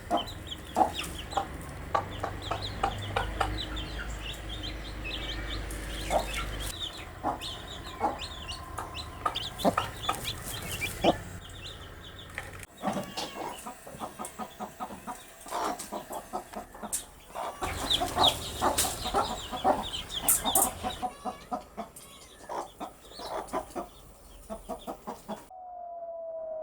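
Baby chicks peeping: many short, high chirps, mixed with frequent sharp taps.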